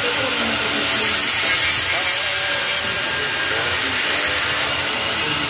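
Welding arc hissing steadily as a weld is laid on the metal plant rack, with faint voices in the background.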